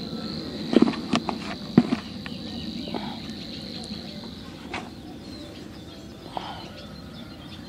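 Feeder rod's spinning reel being wound in to retrieve a loaded feeder, with a few sharp clicks, under a steady high-pitched tone that fades out about four seconds in.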